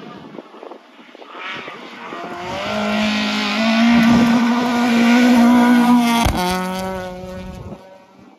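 Rally car engine at high revs on a gravel stage, building to a loud pass-by and then fading away, with a sudden crack about six seconds in.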